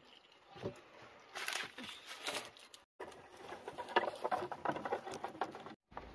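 Dry bamboo poles knocking and clattering against each other as they are picked up and carried, in two bouts of scattered light knocks.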